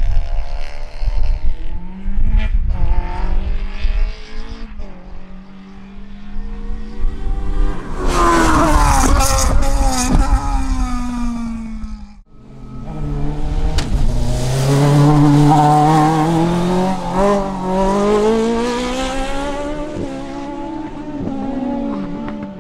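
Racing car engines at high revs, the pitch climbing and dropping with gear changes and lifts, with tyre squeal about eight to ten seconds in. About halfway there is a sudden cut to another car, whose engine note climbs again through the rev range.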